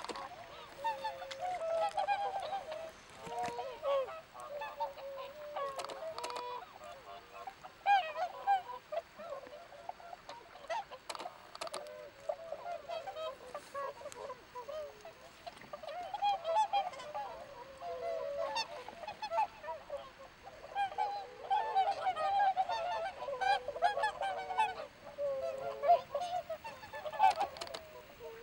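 A flock of whooper swans calling: many overlapping calls from many birds at once, going on without a break, some louder than others.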